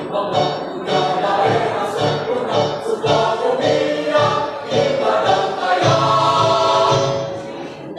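Mixed choir of men and women singing a march in several parts.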